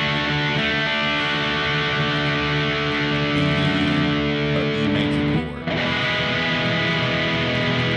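Distorted electric guitar holding a ringing chord. About five and a half seconds in it breaks off briefly, and a new chord is struck and left to sustain: the change from D major to E major.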